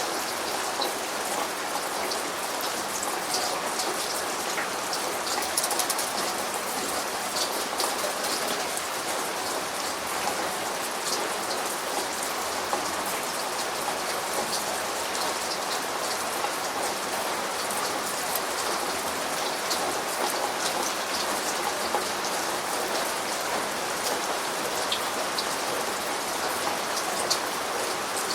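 Steady rain falling, with many separate raindrops ticking on a surface over an even hiss.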